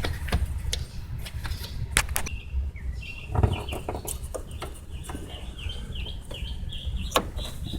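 Sharp plastic clicks and knocks from the fuel pump assembly's parts being worked apart by hand, over a run of short high chirps from about two seconds in.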